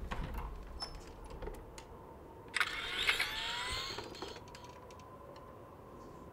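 A toy laser-tag gun powering up: a brief electronic whirr with rising tones about two and a half seconds in, amid soft clicks and rustle, followed by a faint steady electronic tone.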